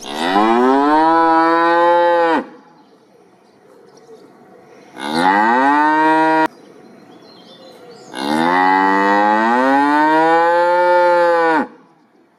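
Cow mooing three times: two long moos, each rising in pitch at the start and then held, with a shorter one between them that cuts off abruptly.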